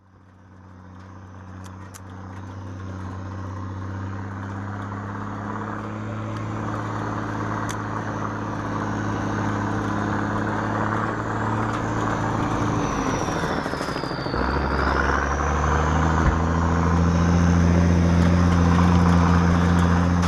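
Truck engine running as the truck drives along, heard from its open cargo bed. The sound rises from silence over the first few seconds; about two thirds of the way through the engine note drops and then comes back deeper and louder.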